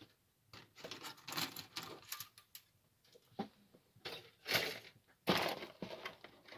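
Plastic model-kit sprues clicking and rattling as they are handled and put aside, with louder bursts of clatter about four and five seconds in.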